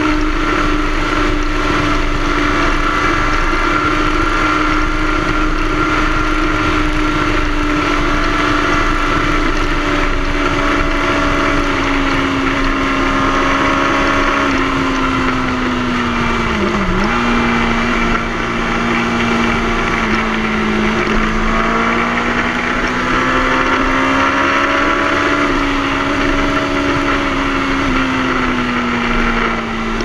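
Yamaha sport bike engine running at steady revs under way, heard onboard with the rush of wind. Its pitch sinks slowly over the run, with one brief sharp dip about halfway through.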